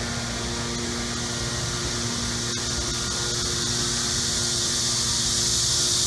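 Steady, high, even hiss of outdoor ambience, growing louder toward the end, over a faint low steady hum.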